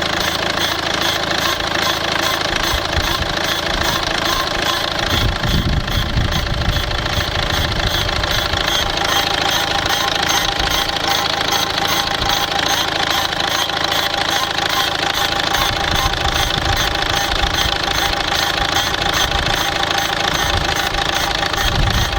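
SsangYong New Actyon diesel engine idling during warm-up with a fast, even clatter running through it, the unfamiliar noise that has appeared at idle.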